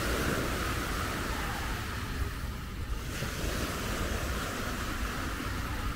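Small sea waves washing onto a sandy beach in a steady hiss of surf, with wind rumbling on the microphone.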